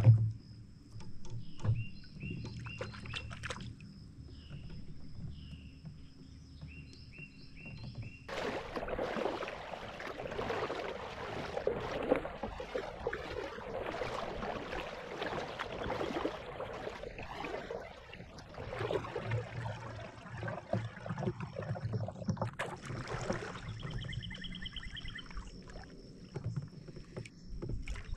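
Water sloshing and splashing from a kayak paddle working the water, starting suddenly about a third of the way in and easing off after about nine seconds. In the quieter stretches either side, a faint steady high whine and short repeated chirps.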